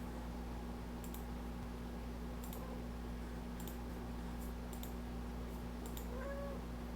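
A domestic cat gives one short meow about six seconds in, over a steady low electrical hum, with faint clicks now and then.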